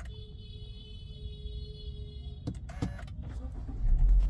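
A steady electronic chime from the Honda Elevate's dashboard for about two and a half seconds as the engine is switched off, then two clicks and a low rumble that grows louder near the end.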